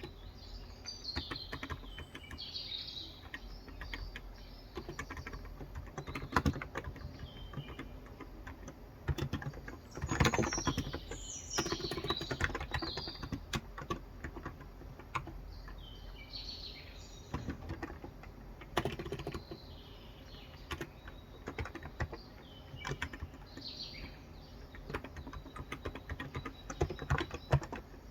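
Typing on a Cox Endeavour electro-capacitive (topre-style) 35g tenkeyless keyboard: soft, dense keystrokes in irregular runs, busiest about ten to thirteen seconds in. Birds chirp now and then in the background.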